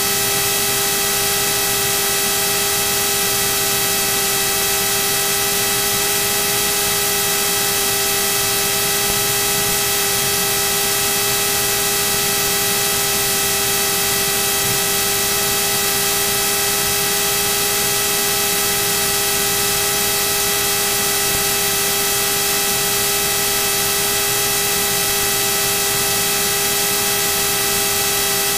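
Steady hiss with several constant humming and whining tones: Cirrus SR22 cockpit noise during taxi, carried on the intercom audio feed. It does not change pitch or level throughout.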